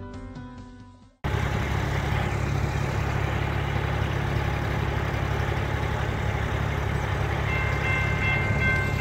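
Music fades out in the first second and a steady low outdoor rumble takes over. Near the end, a railroad crossing signal's warning bell starts ringing, a few steady high tones, as the crossing activates for an approaching train.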